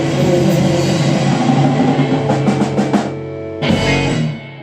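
Electric blues band of guitar, bass and drums ending a slow blues in G: a quick drum fill about two to three seconds in, then one loud final hit by the whole band that rings briefly and dies away.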